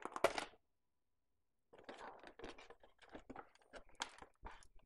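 Cardboard toy pieces and packaging being handled: irregular crinkling, rustling and light taps, with a brief gap near the start.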